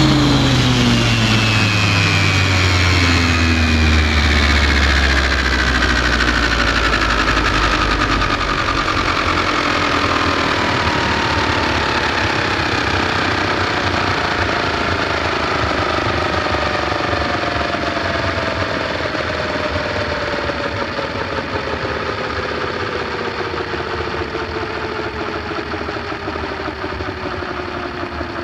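Align T-Rex 550 RC helicopter's motor, gears and rotor spinning down after landing: a whine that falls steadily in pitch and slowly fades. A low rumble underneath dies away in the first few seconds.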